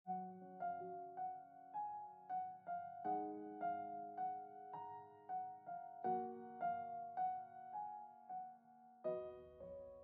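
Background music: a soft piano playing a repeating pattern of notes about twice a second over held chords that change every three seconds or so, the last chord struck about nine seconds in and left to ring.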